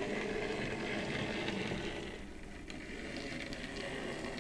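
Hornby L&Y Pug 00 gauge model steam locomotive running along the track, its small electric motor and wheels making a steady mechanical hum.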